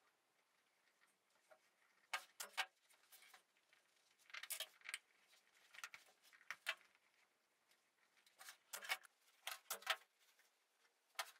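Faint, scattered clicks and taps from hands handling fabric and tools on a wooden workbench, a few in quick pairs, in near silence.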